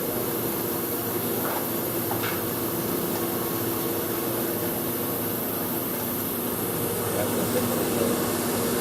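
Steady hum of workshop machinery, a constant noise with a few low tones held under it.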